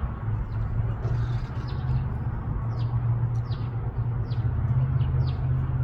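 Songbirds chirping outdoors, short falling chirps about twice a second, over a louder steady low hum.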